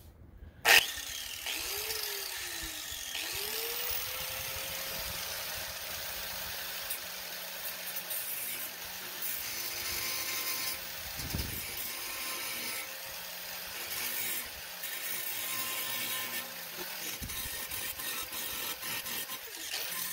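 Corded angle grinder with a grinding wheel switched on about a second in, its whine rising as it spins up, then running steadily while it grinds down a leftover nub of the old metal chute bracket on a mower deck. The grinding hiss swells and eases as the wheel is pressed on and lifted off the metal.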